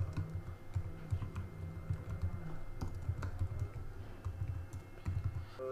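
Typing on a computer keyboard: a quick, irregular run of keystrokes, sharp clicks over dull thuds.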